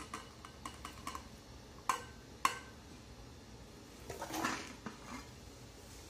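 Clinks and knocks of an aluminium pudding mould against a glass serving dish as the two are turned over together, with two sharper knocks about two seconds in. About four seconds in comes a short, softer rush of noise.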